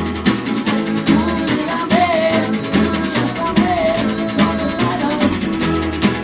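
Rock band playing a song in an acoustic rehearsal: guitars over a drum kit keeping a steady beat, with a bass pulse and a wavering melody line on top.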